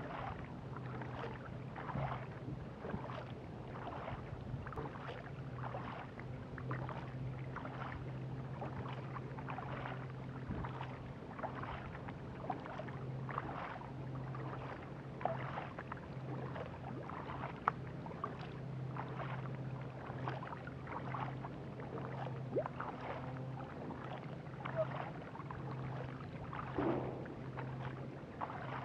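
Double-bladed kayak paddle strokes splashing into and pulling through the water, about one a second, with water running along the hull. A steady low hum sits underneath.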